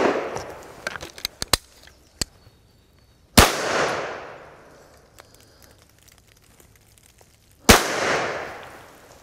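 Two shotgun shots fired up into a squirrel drey, about four seconds apart, each followed by a long rolling echo through the woods that slowly dies away. At the start the echo of an earlier shot is still fading, with a few faint clicks after it.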